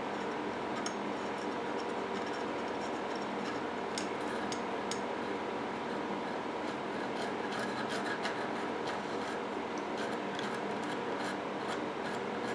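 Light rubbing and scraping with scattered small clicks from handling the freshly soldered tin wing piece, over a steady low hum.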